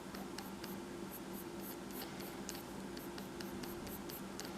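Pencil sketching on paper: faint, quick, scratchy strokes, several a second, over a steady low electrical hum.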